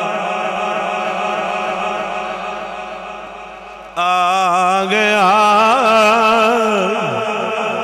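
A man chanting a long, drawn-out devotional refrain with wavering ornaments on the held notes, over a steady low drone. The first phrase fades away, and a new phrase comes in abruptly about four seconds in.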